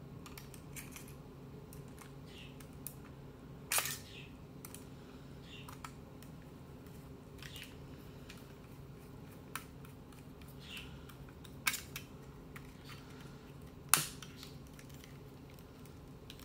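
Scattered light clicks and taps of a screwdriver and plastic handset parts being handled while a Trimline telephone handset is put back together, with a sharper click about four seconds in and the loudest one late on, over a faint steady hum.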